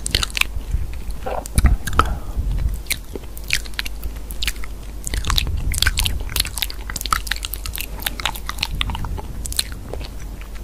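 Close-miked biting and chewing of something crunchy, with irregular crisp crunches coming several times a second.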